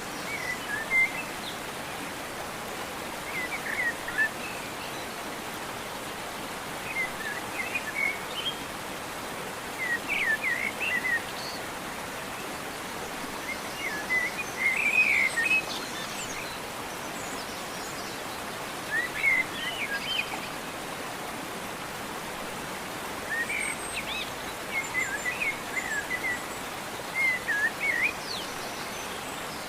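Small birds chirping in short clusters of quick calls every few seconds, over a steady background hiss.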